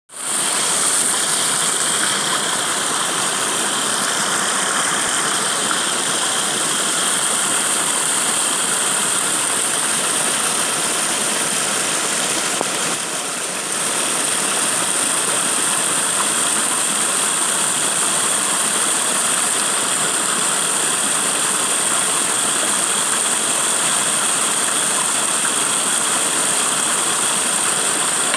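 Muddy floodwater rushing and splashing over rocks in a small runoff stream: a loud, steady rushing noise with a high hiss on top, dipping briefly just before the middle.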